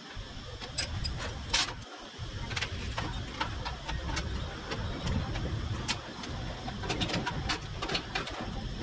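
Scattered light metallic clinks and taps as steel tubes and clamps are handled and set down on a perforated steel fixture table, over a steady low workshop rumble.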